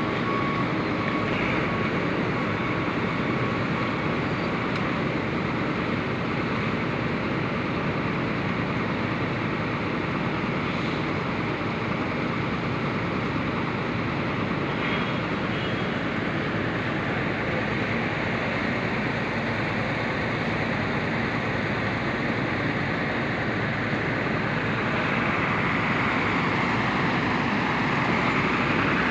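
Steady engine drone mixed with the hiss of water spraying from a hose against the bus's side, swelling a little near the end as a lorry passes.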